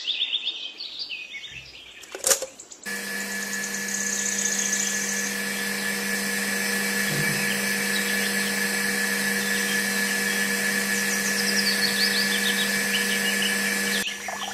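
A 9-volt battery clicked into its snap connector, then a small toy DC motor starts and runs with a steady, even whine, turning a rubber belt and plastic pulleys that drive a mini water pump.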